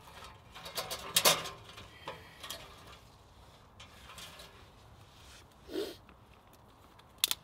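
Thin twigs rustling and clicking against the steel grate as they are packed into the firebox of a small stainless-steel wood stove, with the clicks in the first couple of seconds; a sharp click near the end.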